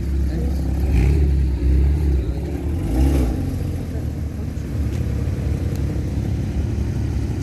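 Porsche Cayman GT4's flat-six engine as the car pulls away at low speed, with a few brief throttle swells in the first three seconds, then running steadily.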